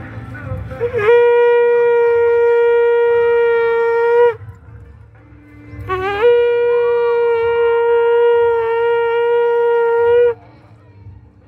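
Conch shell (shankha) blown as a ritual call: two long, steady blasts of about three and four seconds, the second starting about six seconds in, each note scooping up briefly at its start.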